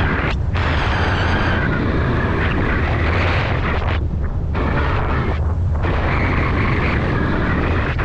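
Wind of flight buffeting the microphone of a wing-mounted camera on a hang glider: a loud, steady rumbling rush that eases briefly about half a second, four and five and a half seconds in.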